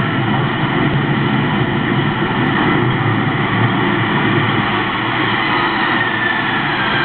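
Steady, loud vehicle noise with engines running, and a faint falling whine near the end.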